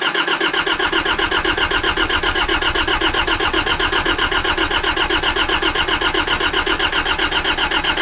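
Kubota diesel generator engine cranking on its electric starter with a rapid, even beat. It is cold with dead glow plugs and does not catch.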